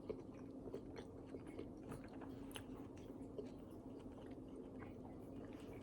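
Faint, close-miked chewing of food, with small irregular mouth clicks over a steady low hum.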